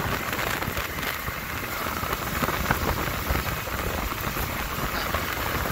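Steady crackling road noise from a Can-Am Maverick X3 Turbo R side-by-side driving on a gravel road, heard from inside its open cab: tyres on loose gravel with wind rushing past.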